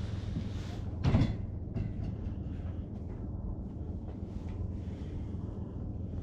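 An engine running steadily at idle, with one loud knock about a second in and a few lighter clicks.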